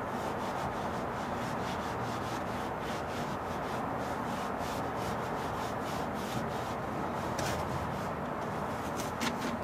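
Rubber-gloved hands rubbing and smoothing carpet to stretch it flat over a truck cab floor: a steady brushing rub with a few faint clicks.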